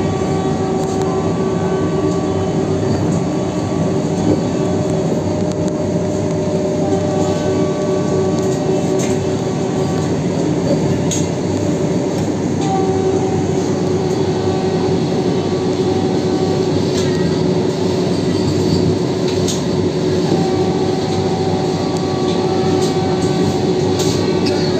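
Vande Bharat Express electric train set running along the line, heard from inside a chair-car coach: a steady rumble carrying a hum of a few held tones, with occasional faint clicks.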